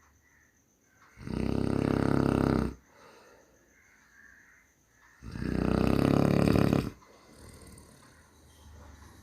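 A person snoring: two loud, rattling snores, each about a second and a half long and about four seconds apart, with quiet breathing between them.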